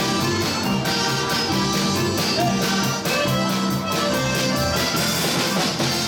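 Live polka band playing, led by red piano accordions, over a steady, even beat.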